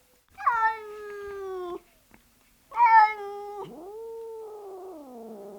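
Domestic cat meowing: two meows, the first about a second and a half long, then a second that runs straight into a long, drawn-out yowl sliding lower in pitch.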